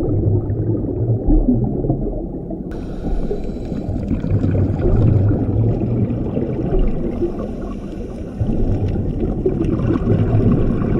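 Muffled underwater sound picked up by a GoPro in its housing on a scuba dive: a dense low rumble with gurgling that swells and eases every few seconds. A brighter crackle joins about three seconds in.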